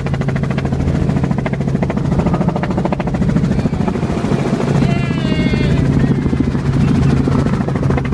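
Helicopter heard from inside its cabin: a steady engine-and-rotor drone with a fast beating of the rotor blades, as it comes down close to the ground to land. A brief high wavering sound rises over it about five seconds in.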